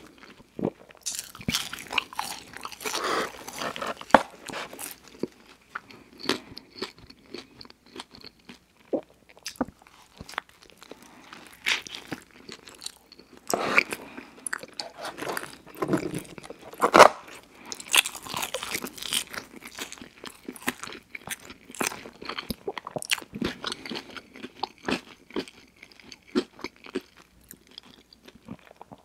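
Close-miked eating sounds: a person biting into and chewing a Filet-O-Fish sandwich and fries, with irregular crunching and mouth clicks, loudest in the middle.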